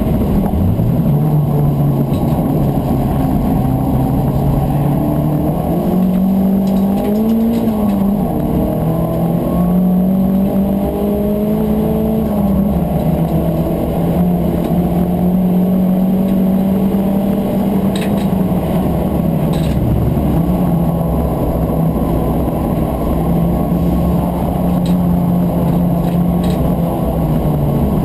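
Turbocharged Volkswagen Corrado race car's engine heard from inside the cabin under hard racing use. Its pitch climbs and drops with gear changes and lifts off, held high for a long stretch mid-way. It falls again near the end on the approach to a corner.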